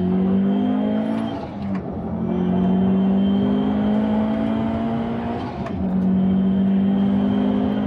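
Turbocharged 2.2-litre flat-four of a tuned Subaru VAB WRX STI (enlarged engine, swapped turbine) heard from inside the cabin under full throttle. It climbs in pitch through the gears and shifts up twice, just under two seconds in and again a little before six seconds in.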